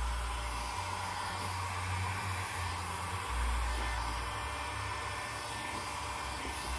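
Bauker electric heat gun blowing a steady rush of air, with a low rumble that swells and fades as the stream moves over the wet paint.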